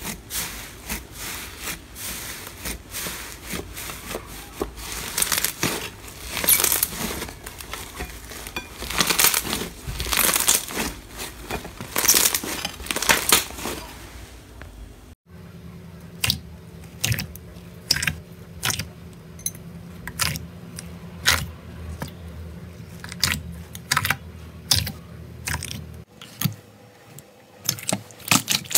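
Hands squishing and pulling apart slime, fluffy slime first: a dense crackling, tearing texture for about half the time. Then a run of separate sharp clicks and pops.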